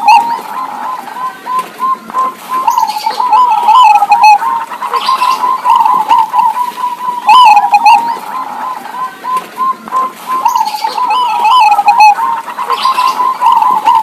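Zebra doves cooing: phrases of quick, rippling, wavering notes that repeat every few seconds.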